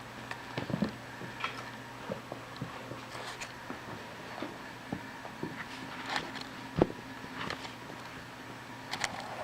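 Kittens scuffling at play: scattered soft taps, scrapes and small knocks, with one sharper knock about seven seconds in, over a steady background hum.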